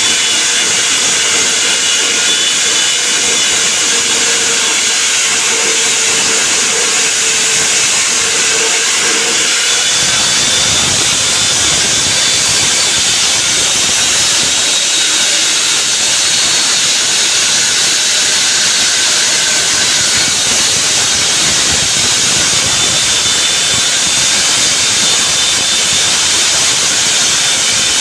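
Diamond saw cutting a reinforced concrete slab: a steady, loud, hiss-like grinding with faint whining tones.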